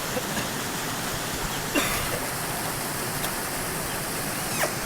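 Waterfall rushing steadily, with a couple of brief knocks, one about two seconds in and one near the end.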